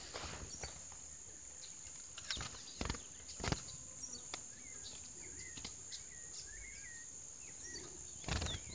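Bird cage being handled: a few sharp knocks and rattles about two and a half to three and a half seconds in, and a louder rustle near the end. Faint short bird chirps come between them, over a steady high insect buzz.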